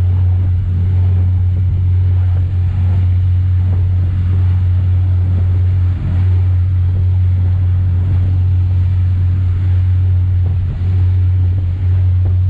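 A motor boat's engine droning steadily at cruising speed, with the rush of the churning wake and wind buffeting the microphone.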